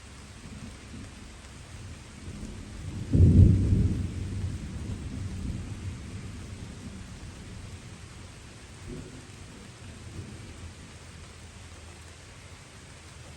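A thunderclap over steady light rain: a low rumble builds, breaks into a sudden loud clap about three seconds in, then rolls away over several seconds, with two smaller rumbles later.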